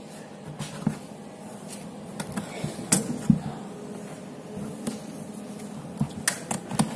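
A hard plastic tub being handled: scattered knocks and clicks as hands touch and tap it, loudest about three seconds in and again near the end.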